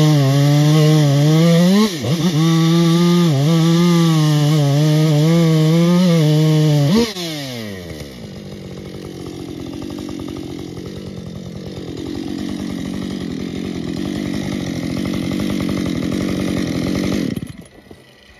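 Husqvarna two-stroke chainsaw at full throttle, cutting into a large spruce with the revs wavering under load. About seven seconds in the revs fall away, and the saw runs on lower and rougher before cutting off abruptly near the end.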